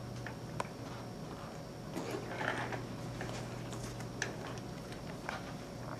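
Quiet room tone: a steady low hum with a few faint, scattered clicks and a little light rustling.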